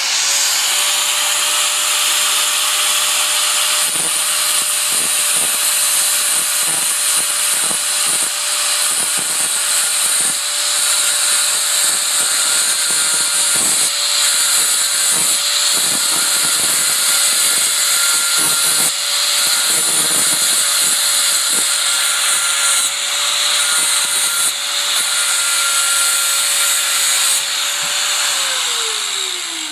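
Angle grinder running at full speed, its disc grinding down a small silver bar held in locking pliers: a steady motor whine under a loud high hiss of metal being ground away. The motor winds down near the end.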